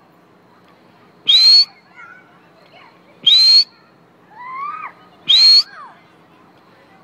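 A whistle blown in three short, sharp blasts about two seconds apart, each rising slightly in pitch. Children's calls sound faintly between the blasts.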